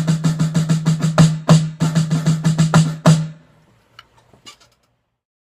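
Snare drum played fast: a quick, even run of stick strokes with louder accents, ending on a final stroke about three seconds in that rings out. A few faint clicks follow.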